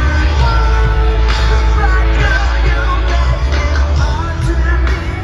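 Rock music with a singer over heavy, steady bass.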